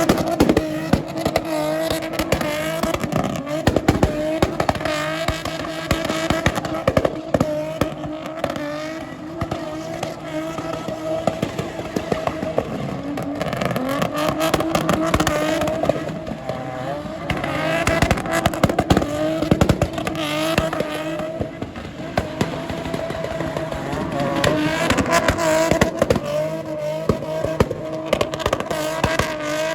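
Competition car's engine running hard, its pitch rising and falling, with tyres squealing and sharp crackling pops.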